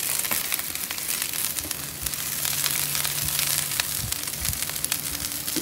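Sliced onion, bell pepper and jalapeño sizzling in oil on a hot ceramic-coated flat-top griddle, a steady hiss full of small crackles as the vegetables go down.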